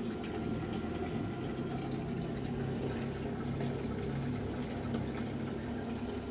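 Steady low electrical hum with a hiss under it, from a running 48V off-grid solar inverter and its equipment.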